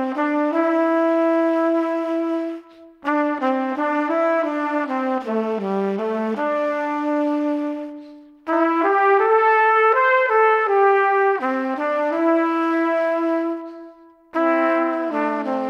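Background music: a melody of held notes in phrases a few seconds long, broken by short pauses about three, eight and fourteen seconds in.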